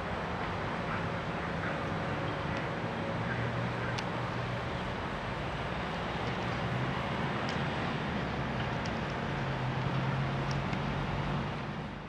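Diesel engine of a Gottwald mobile harbour crane running under working load, a steady low hum that swells twice, with a few faint clanks. It fades out near the end.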